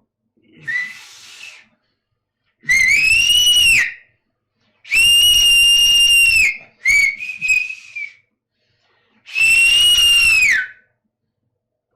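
Loud whistling of approval, a bravo whistle: one faint short whistle, then four long, piercing blasts with gaps between them, the first rising and falling in pitch and the last dropping off at its end.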